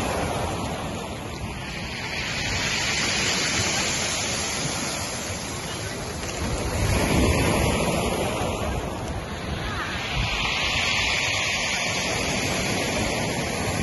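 Sea surf washing onto a pebble beach: a steady rushing hiss that swells and eases every few seconds.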